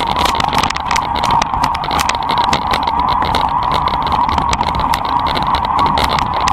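Electric mountain bike ridden over a rough, stony dirt trail: rapid, irregular clattering and rattling as the bike jolts over the stones, over a steady mid-pitched whine from the e-bike's motor.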